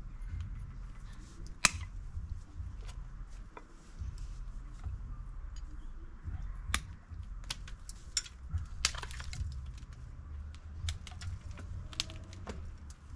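Potting soil crumbling and fine roots snapping as an azalea root ball is teased apart by hand and with a small tool, giving irregular sharp crackles and clicks over a low rumble.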